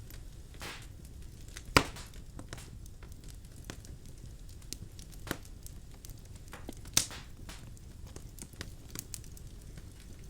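Birch logs burning in a fireplace, crackling with scattered small ticks and three sharper pops, the loudest about two seconds in, over a low steady rumble of the fire.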